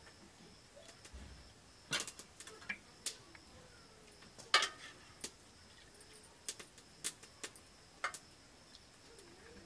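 Metal serving spoon clinking against a stainless-steel cooking pot and steel plates as curry is ladled out. About ten sharp, irregular clinks, the loudest about halfway through.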